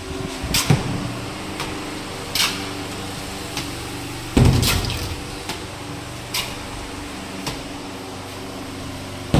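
Tile-laying work: scattered sharp knocks and scrapes, with one heavier thump about four and a half seconds in, over a steady low machine hum.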